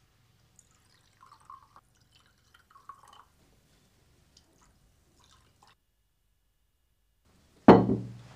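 Faint trickling and small clinks of wine being poured into glasses, twice in the first few seconds. A man's voice starts loudly near the end.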